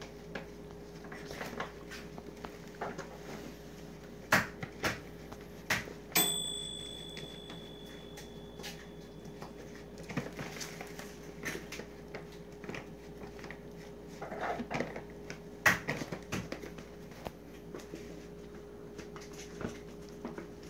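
Glossy plastic dog-food bag crinkling and rustling as a dog moves about with its head inside it, with irregular taps and a few sharper knocks, one about six seconds in ringing on briefly. A faint steady hum runs underneath.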